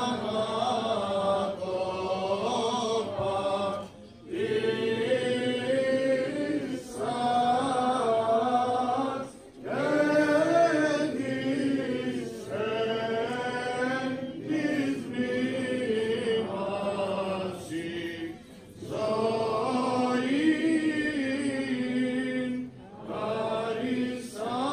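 Greek Orthodox Byzantine chant: church chanters singing a hymn in long phrases that waver in pitch, with short breaks between phrases.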